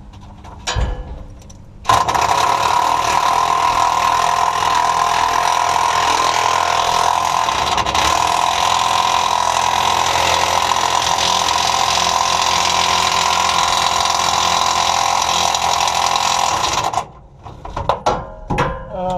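Heavy impact wrench hammering steadily on a rusted, seized fuel-tank mounting bolt for about fifteen seconds. It starts suddenly about two seconds in and cuts off near the end, the bolt still not breaking loose.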